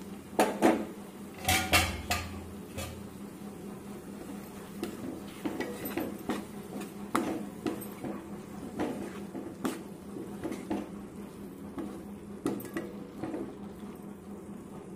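A spatula stirring chopped tomato and yellow cucumber pieces in a kadai, scraping and tapping irregularly against the pan. There are a few louder knocks in the first three seconds, then lighter clicks about once or twice a second.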